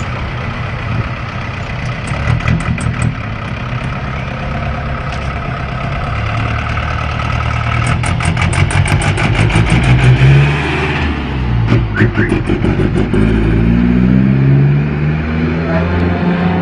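Minibus engine running and revving, its pitch climbing to a peak about ten seconds in, dropping, then climbing again near the end.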